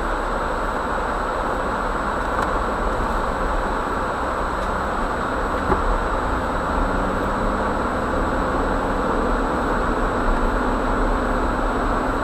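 Steady drive noise inside a Jeep Wrangler's cabin as it rolls slowly over a snow-covered road: engine hum and tyre noise, with one light click about six seconds in.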